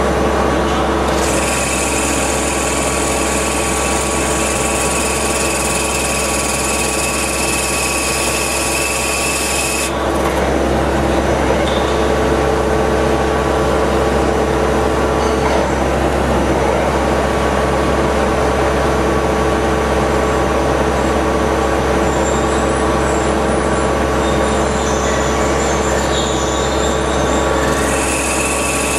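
CNC machining center running an inertia-actuated back spotfacing tool: a steady machine drone with a high whine over it. The whine cuts out about a third of the way in and comes back near the end.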